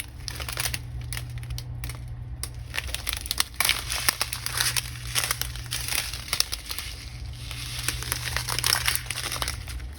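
Small plastic bags of diamond painting drills crinkling as they are handled and sorted, in irregular bursts of rustling.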